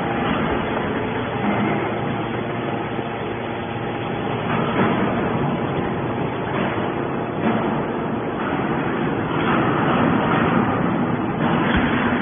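Hydraulic scrap-metal baler running: the steady hum of its hydraulic pump, with grinding and scraping surges as the ram pushes a bale of compressed aluminium cans out of the press chamber.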